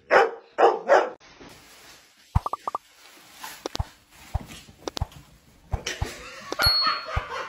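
A dog gives three loud barks in quick succession. After them come the rustle of a plastic bag and scattered light knocks on a hard floor.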